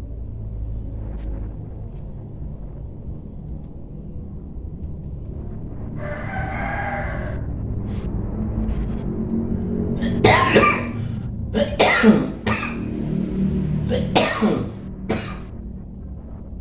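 A person coughing: several harsh dry coughs in clusters from about ten seconds in, the loudest near twelve seconds, the dry cough the patient complains of. A rooster crows once, about six seconds in.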